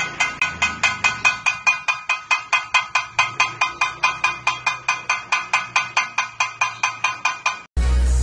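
A metal cooking pot struck rapidly with a utensil, about five ringing clangs a second in an even beat. It cuts off suddenly near the end, where music with a deep bass comes in.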